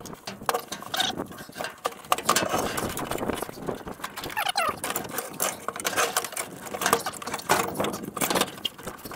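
Irregular metallic clinks, knocks and scrapes as a cast-iron manifold is worked into place on an inline-six engine and its bolts and washers are started by hand.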